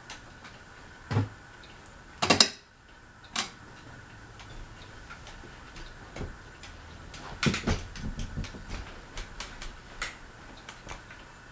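Sharp clicks from a ceiling fan's pull-chain light switch being worked, the loudest about two seconds in. A run of lighter ticks follows later, over a faint steady high hum.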